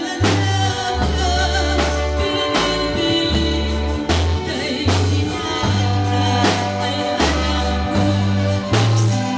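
Woman singing a slow Ilocano song into a microphone with a live band amplified through PA speakers: electric bass holding low notes that change every second or so under steady drum-kit hits.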